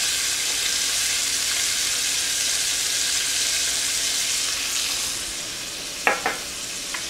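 Mahi-mahi fillets sizzling in browned butter in a stainless steel pan: a steady frying hiss that eases slightly about five seconds in, with a couple of brief sharp sounds near the end.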